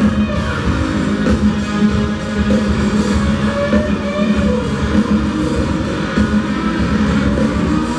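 Rock band playing live, an overdriven electric guitar to the fore over drums and bass, heard through an audience recording in a large amphitheater.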